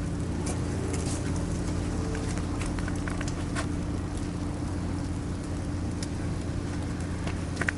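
Steady low engine hum of a vehicle running nearby, with scattered light clicks and crackles over it.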